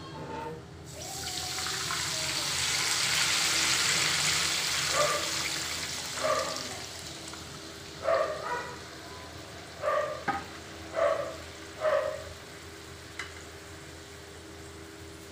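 Tomato and green-chilli gravy hitting hot oil in a kadhai: a loud sizzle that starts suddenly, swells, then dies away over several seconds. The thick gravy then bubbles, with several short plops about a second apart.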